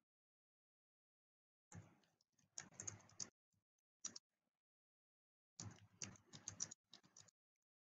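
Faint typing on a computer keyboard: a quick run of keystrokes about two seconds in, a single keystroke near the middle, and another quick run about six seconds in.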